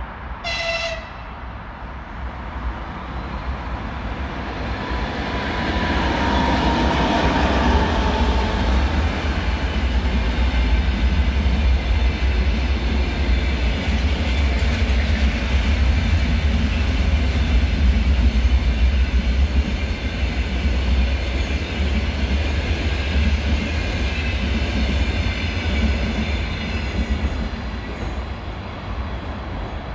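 EP2K electric locomotive hauling a long passenger train of double-deck coaches past at speed. The sound builds as the train approaches, stays loud from about six seconds in as the coaches go by with a steady rumble of wheels on rails, and fades near the end.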